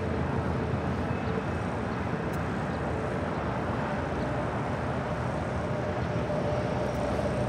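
Steady jet engine noise from an airliner taxiing at idle: an even roar with a faint whine that shifts a little higher past the middle.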